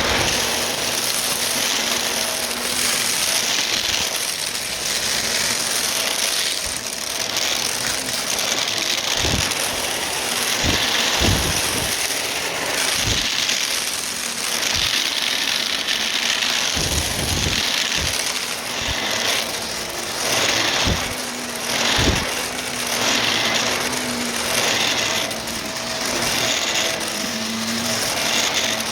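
Vacuum cleaner running with its brushroll spinning, its steady motor whine rising and falling as it is pushed back and forth quickly. Sharp crunches and clicks come through at scattered moments as the brushroll picks up crunchy debris.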